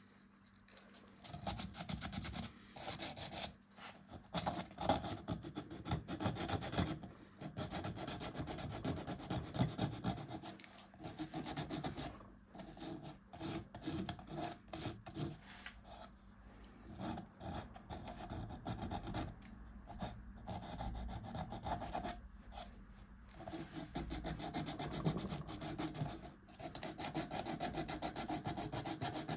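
A hand tool scraping and rasping rapidly on a beech-wood cup. The strokes come in runs of a few seconds with brief pauses between them.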